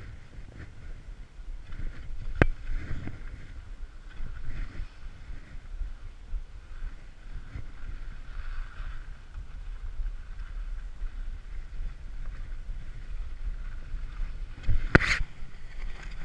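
Low wind rumble on a body-mounted action camera's microphone, with glove and jacket fabric rubbing against it. A sharp click comes about two and a half seconds in, and a louder scuffing knock comes near the end as the camera is covered by the jacket.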